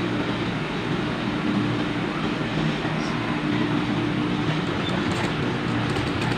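Sewing machine running steadily, stitching a seam through layers of fabric, with an even motor hum throughout.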